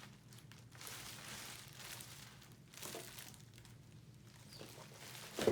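Food packaging rustling and crinkling in irregular spells as items are handled and pulled out of a delivery box.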